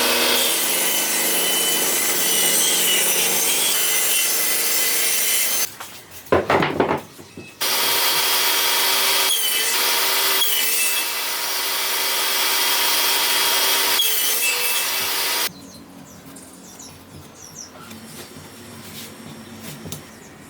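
Power tool cutting through wood in two long passes, with a few knocks in the short break between them. Near the end it is much quieter, with faint clicks of handling.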